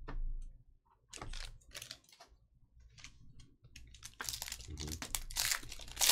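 Foil wrapper of a Panini Select UFC hobby pack crinkling and crackling as it is handled and torn open by hand, in irregular clicks that grow dense over the last two seconds. A short thump right at the start as cards are set down on the table.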